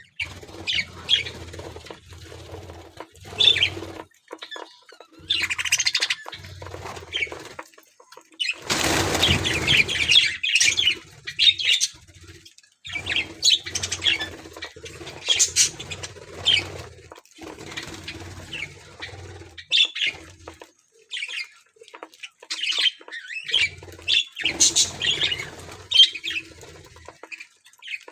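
A flock of budgerigars chirping and chattering in short high calls, with wings flapping. A louder, noisy burst lasts about two seconds, around nine seconds in.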